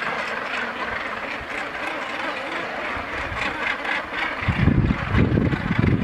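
Northern gannet breeding colony calling: a dense, unbroken din of many harsh calls. From about four and a half seconds in, a louder, gusty low rumble joins in.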